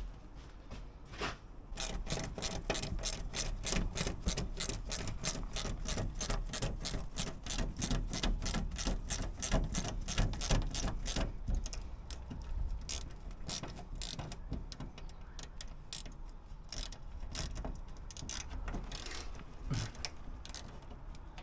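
Hand socket ratchet clicking as bolts are worked. It makes a quick, even run of about five clicks a second for roughly ten seconds, then slower, scattered clicks.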